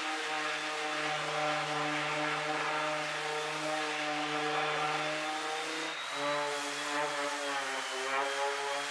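Electric random orbital sander running steadily against a plywood panel, a motor hum with sanding hiss; the hum drops slightly in pitch about six seconds in.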